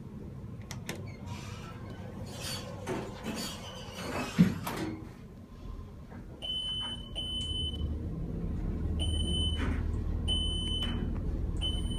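Dover traction elevator doors sliding shut with a thud about four seconds in. The car then sets off upward with a low, steady hum, and a short high beep sounds every second or so as it passes the floors.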